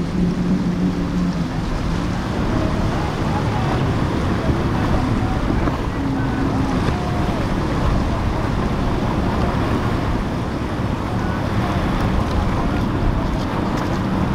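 Powerboat engines running through choppy water, with splashing waves and wind rushing on the microphone. The steady hum of a quad-outboard center console is heard for the first second or so, then fades into the wind and water.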